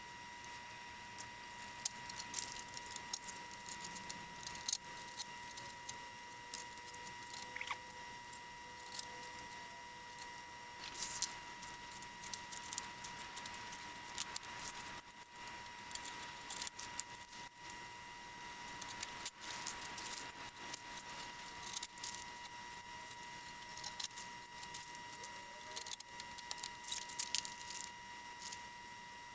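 Small metal hardware clicking and clinking in irregular light taps and rattles as painted aluminum sign layers, bolts and spacers are handled, over a faint steady high tone.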